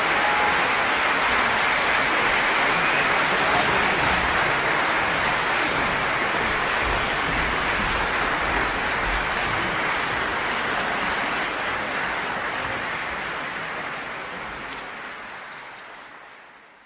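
Dense, steady rushing noise with no tune in it, like rain, running water or applause, fading out to silence over the last three seconds or so.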